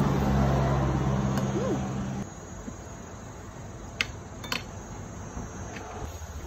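A motor vehicle's engine running steadily with a low hum, cut off abruptly about two seconds in. Then a quieter outdoor background follows, with a few sharp clicks.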